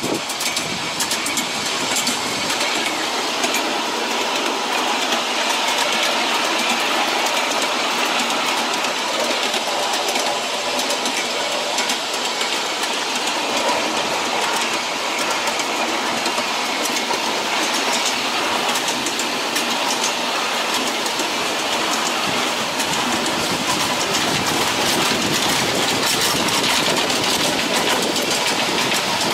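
Ride-on miniature railway train rolling along its track: a steady clatter of small steel wheels on the rails, with many quick clicks over the rail joints.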